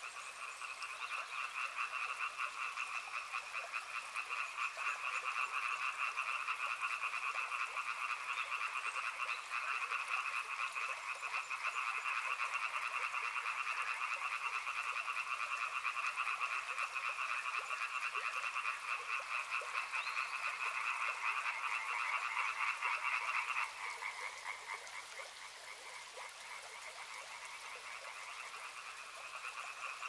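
A chorus of frogs calling in rapid pulsed trills, the calls overlapping without a break. About three-quarters of the way through, the chorus drops quieter and lower in pitch, then swells again near the end.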